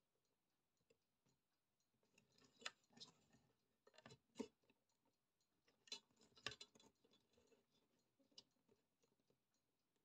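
Near silence broken by faint, scattered scratches and small clicks of fingers handling and working wire insulation at a power supply's terminals.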